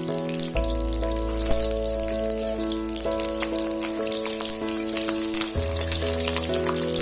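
Chicken pops deep-frying in hot oil on a low flame: a steady crackling sizzle of many small pops. Background music with held notes and a changing bass line plays over it.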